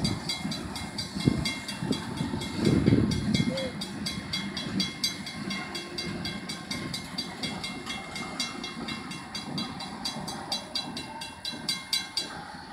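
Tank cars of a CSX freight train rolling past, wheels clattering heavily for the first few seconds and then easing off as the last car goes by. Over it a grade-crossing bell rings with fast, even strikes and stops near the end.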